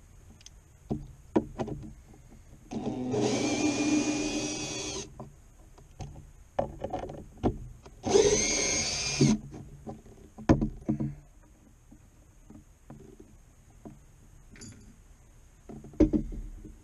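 Power drill running in two bursts, about two seconds and then just over a second long, the second rising in pitch as it speeds up, driving screws that fasten a wooden panel down to a boat console. Sharp handling knocks and clicks come between the bursts.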